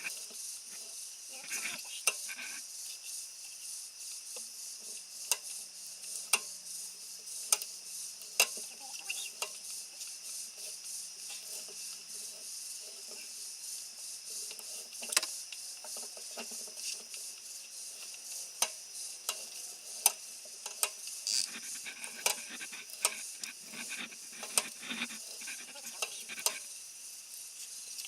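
Stevens front end tool being turned by hand in a worn Model T Ford front axle, its cutter scraping out the old spindle-bolt threads, with irregular sharp metal clicks as it turns.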